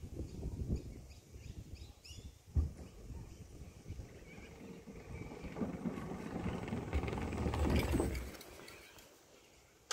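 Scooter wheels rolling over a footbridge deck, growing louder as the rider approaches, loudest about eight seconds in as it passes close by, then fading away.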